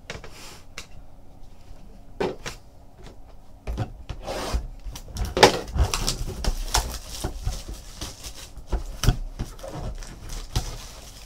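Hands handling trading cards and foil pack wrappers on a tabletop: scattered rustles, taps and scrapes, the loudest about five and a half seconds in.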